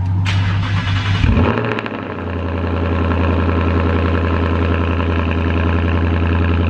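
2019 Ford Mustang GT's 5.0-litre V8 cold-starting after sitting all day: it fires loudly and flares up in the first second or two, dips briefly, then settles into a steady fast idle.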